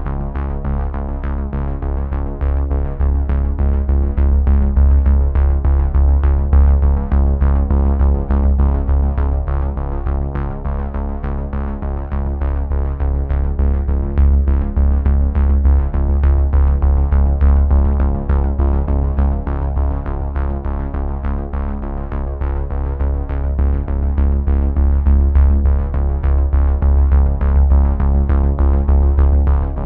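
Electronic background music: held synthesizer chords over a heavy bass and a steady drum-machine beat.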